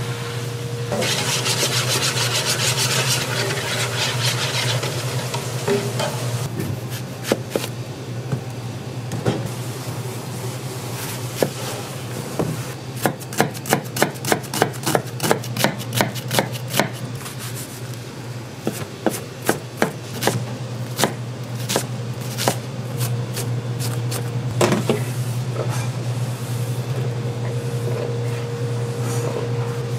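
Knife chopping on a cutting board in quick, even strokes of about five a second, in two runs around the middle, after a rough rasping noise near the start. A steady low hum runs underneath.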